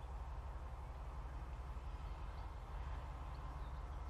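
Class 70 diesel locomotive's V16 engine giving a low, steady, evenly pulsing rumble as it runs slowly forward while shunting.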